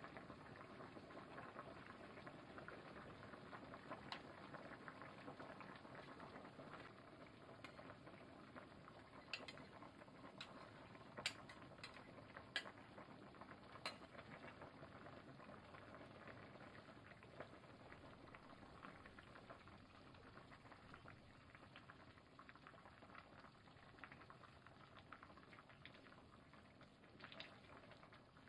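Faint steady bubbling of soup simmering in a pot, with a few light clicks of a metal ladle against the pot in the middle.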